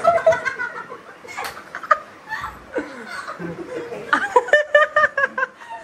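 A group of people laughing together, with a run of quick, repeated laughs about four seconds in.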